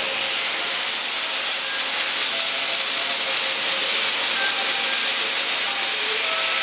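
Robotic arc welding of a steel scooter frame: a steady, loud hiss, with a few faint short tones here and there.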